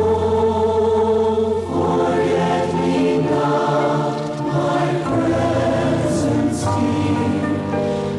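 A congregation singing a devotional song together, many voices holding long notes.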